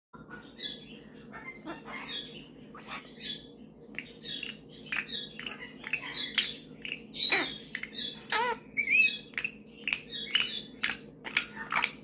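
Male Australian king parrot chattering in a run of short chirps and squawks, with one long call sliding steeply down in pitch about seven seconds in and a quick string of sharp short calls near the end.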